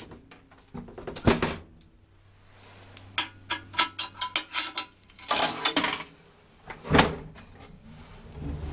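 Clanks, rattles and a quick run of clicks from an old 1973 Bassetti traction elevator's doors and gear in a small cabin, with a louder clatter about five seconds in and a single knock at about seven seconds. A low steady hum starts near the end.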